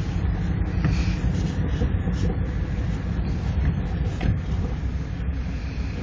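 Steady low rumble with a hiss over it, heard inside a car's cabin, with a few faint clicks.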